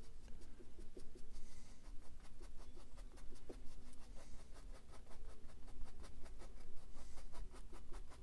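Small round brush tapping and flicking quick comma strokes of dark oil paint onto a stretched canvas: a soft, rhythmic scratching of several light strokes a second.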